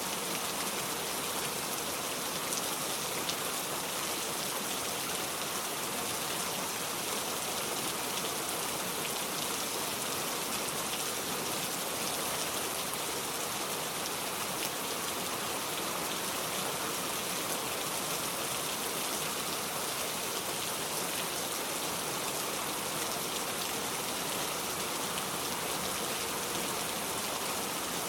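Steady rain falling, an even hiss of fine pattering drops with no break or change.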